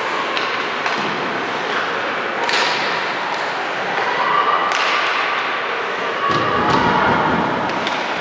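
Basketball thumping on a hardwood gym floor amid the steady noise of players and spectators, with several sharp knocks and a heavier thud about six to seven seconds in.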